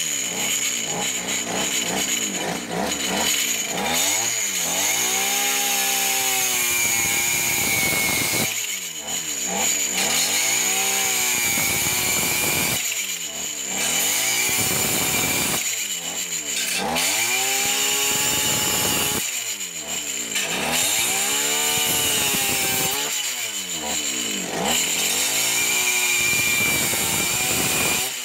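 Brushcutter engine driving a home-made chainsaw attachment while cutting wood. The engine note sags and climbs back up again about every four seconds, over a steady chain hiss.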